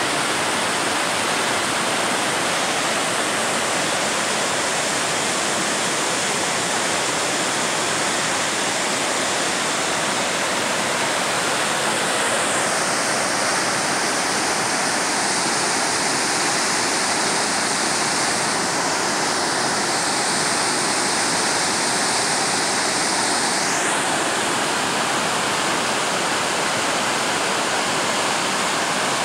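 A rain-swollen mountain river in flood, pouring over a rocky waterfall as churning whitewater: a loud, steady rush of falling water.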